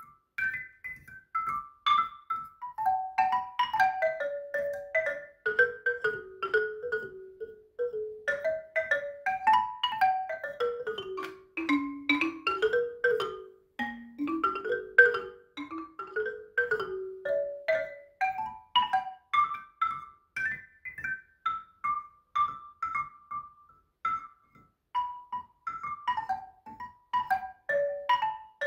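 Background music: quick runs of short, bright single notes that fall and climb in pitch, each note dying away quickly.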